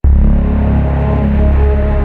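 Background music: a dark, ominous track with a heavy, sustained deep bass and held tones above it, starting abruptly.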